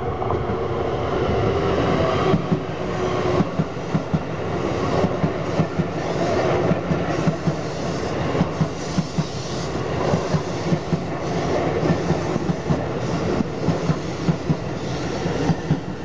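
Keisei 3700 series electric multiple-unit train passing close by with a steady rumble. Its wheels clack over the rail joints again and again, often in quick pairs.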